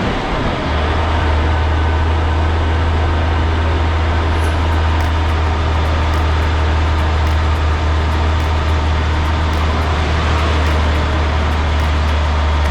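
Concrete mixer truck's diesel engine running with a steady, loud low drone under broad mechanical and road noise.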